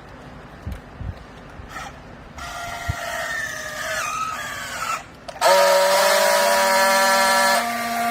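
A few knocks, then a machine motor whining in a wavering pitch. About five and a half seconds in it comes on louder with a steady whine, then cuts off suddenly at the end.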